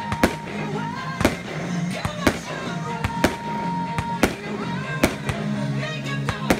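Fireworks going off with sharp bangs about once a second, two of them close together near the end, over music playing steadily underneath.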